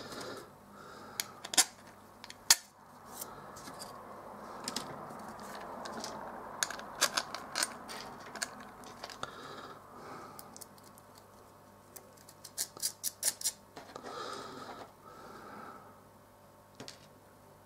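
Small steel nuts and machine screws clicking against each other and the work mat as they are picked through and fitted to an acrylic case panel. The clicks are scattered, with a soft rustle of handling between them and a quick run of about six clicks a little past the middle.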